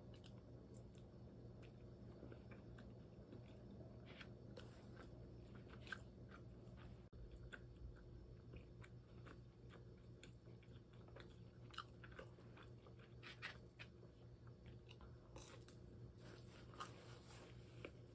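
Faint chewing and crunching of food, heard as scattered short crisp clicks over a low steady hum.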